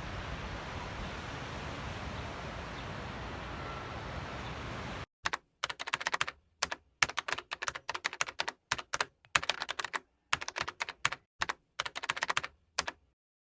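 Steady wind and surf noise for about five seconds, then cuts off to dead silence. After that comes a computer-keyboard typing sound effect: clusters of rapid key clicks with dead silence between them.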